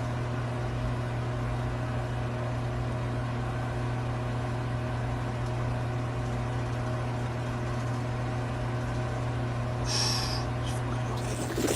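A steady low hum with several steady tones layered above it, unchanging throughout; a brief hiss about ten seconds in.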